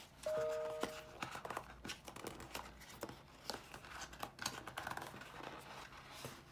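Small cardboard box being handled and its tight-fitting lid worked open: scraping, rustling and light taps of card on card, with a short squeak near the start.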